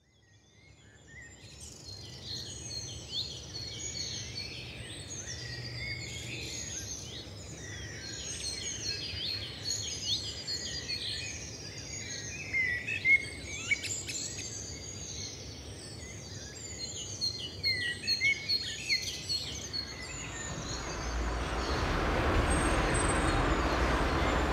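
A dense chorus of many birds chirping and twittering, fading in from silence at the start. About twenty seconds in the birdsong thins out and steady city traffic noise rises in its place.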